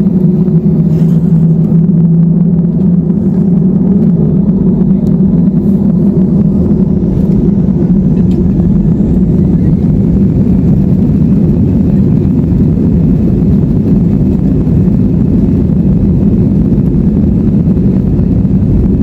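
Airbus A320 cabin during the takeoff roll: jet engines at takeoff power give a loud, steady rumble, with a faint whine rising slightly about nine seconds in.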